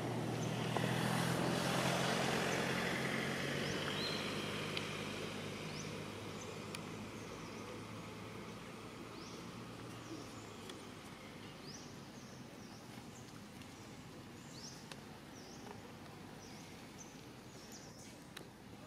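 A motor vehicle's engine passes, loudest in the first few seconds and then slowly fading away. Small birds give short chirps repeatedly in the background.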